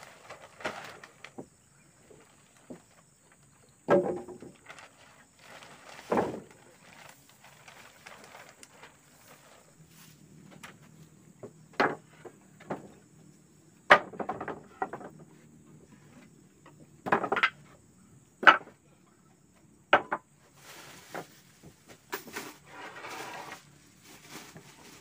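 Irregular knocks and clinks, seven or so sharp ones spread out, over a faint steady high tone.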